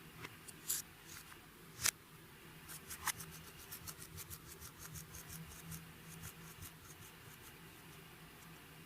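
Hand-worked slime making a run of small sticky clicks and crackles, with a sharper snap about two seconds in; the clicks thin out over the last couple of seconds.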